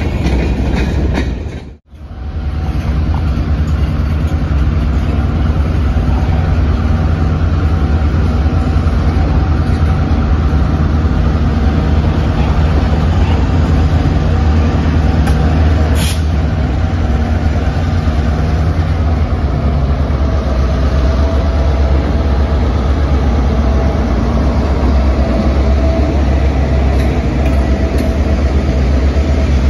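Diesel freight train passing slowly: a steady low locomotive engine rumble with the rolling of freight cars on the rails, broken by a brief cut to silence about two seconds in. A single sharp clank comes about sixteen seconds in.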